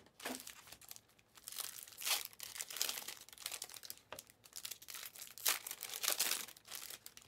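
Foil wrappers of Panini Mosaic Fast Break basketball card packs crinkling in irregular bursts as the packs are handled and torn open.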